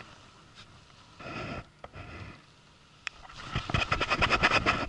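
Baitcasting fishing reel clicking in rapid runs while a hooked fish is played: a short run a little after a second in, then a louder, longer run of about a second near the end.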